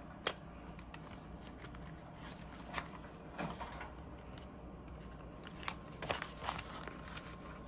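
Clear plastic binder pouches and paper bills being handled: soft crinkling and rustling as a pouch page is turned over, with a few light clicks.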